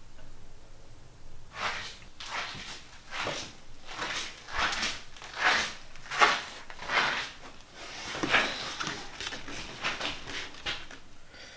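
A person breathing hard and fast through the nose and mouth, about a dozen loud, noisy breaths in quick succession.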